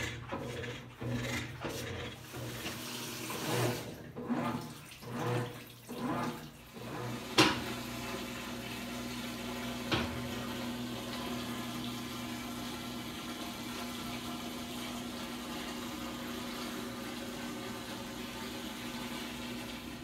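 Water running into a Mabe top-load washing machine as it fills, uneven at first and then a steady rush with a low hum. There is a sharp click a little over seven seconds in and a fainter one at about ten seconds.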